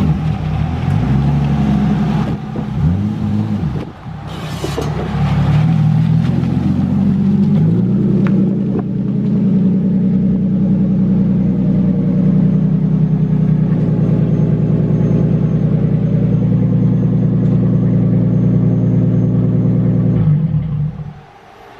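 Toyota 2JZ inline-six in a Nissan S13 revving during a driveway burnout. The engine note rises and falls over the first few seconds, then is held high and steady for about twelve seconds before dropping off near the end.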